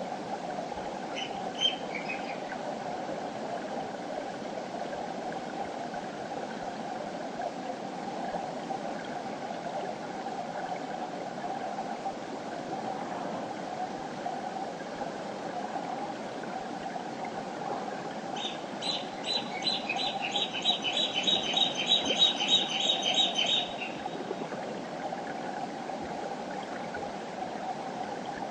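River water flowing in a steady rush. A bird chirps briefly near the start, and about two-thirds of the way in a bird calls a fast run of repeated high notes, about four a second, for some five seconds.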